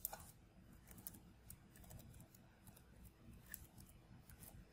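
Faint, scattered clicks of a computer keyboard and mouse over near-silent room tone.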